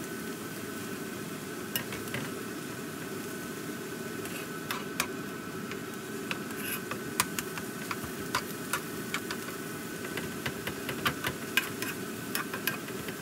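Metal spoon clicking and scraping against a nonstick wok while stir-frying bracken, the taps coming more often in the second half, over a steady low hum.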